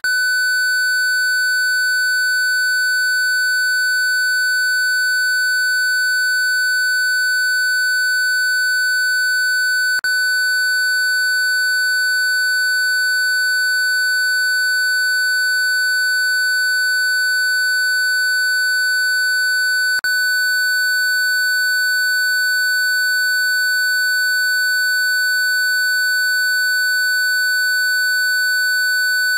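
A synthesized 1500 Hz sine tone holding steady and unchanging, with fainter steady tones above and below it. There is a brief click twice, about ten and twenty seconds in, where the tone loops.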